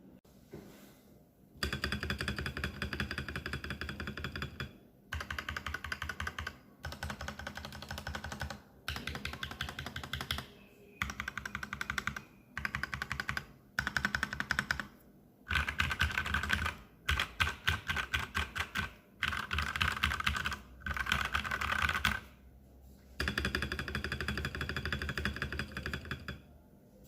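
Typing on a TM680 mechanical keyboard with lubed Gateron Red linear switches and PBT XDA-profile keycaps. The typing comes in runs of rapid keystrokes, each one to three seconds long, with brief pauses between them.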